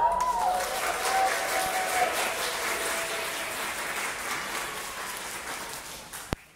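Audience applauding, with a rising, drawn-out cheer at the start. The clapping fades gradually and stops near the end, just after a single sharp click.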